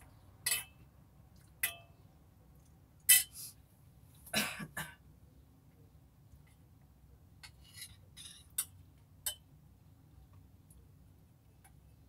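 A metal spoon clinking against a bowl as food is scooped out: a series of sharp, separate clinks, with a short scrape about eight seconds in.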